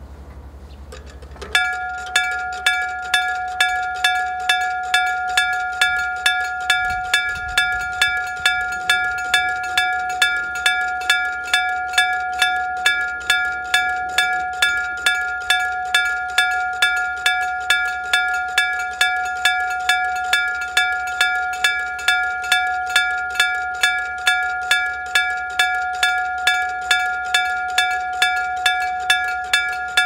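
Electric-bell (denshō-type) Japanese railway level crossing alarm: an electrically driven hammer strikes the bell over and over at an even pace, starting about one and a half seconds in, each strike ringing a clear bell tone. The crossing is warning that a train is approaching as the barrier comes down.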